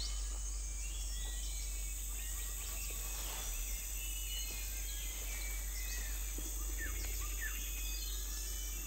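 Forest ambience: many short bird chirps and whistles scattered over a steady high-pitched insect drone, with a low steady hum underneath.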